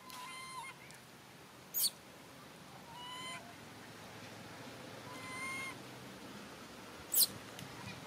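Young long-tailed macaque giving short, steady-pitched coo calls, three of them a few seconds apart, each about half a second long. Two very brief, sharp, high-pitched falling chirps are the loudest sounds, one about two seconds in and one near the end.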